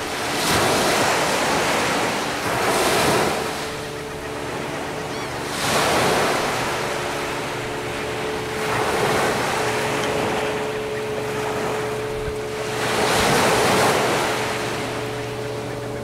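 Small surf waves breaking and washing up the beach, several surges of rushing water one after another, each swelling and fading over a second or two.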